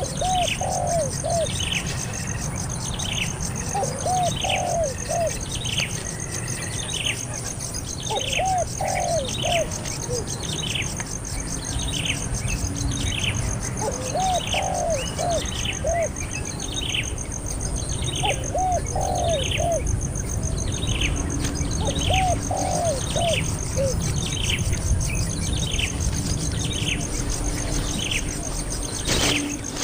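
A small bird chirping over and over, each call a short high note sliding downward, a little faster than once a second. A dove coos in short groups of about three notes every few seconds.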